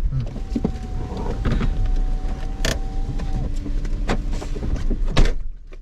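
A car's electric window motor running for about three seconds as a steady whine over the low rumble of the car, with a few clicks and a sharp knock near the end.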